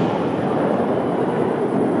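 Fireworks display: a steady, dense rolling rumble of shell bursts and their echoes, with no single sharp bang standing out.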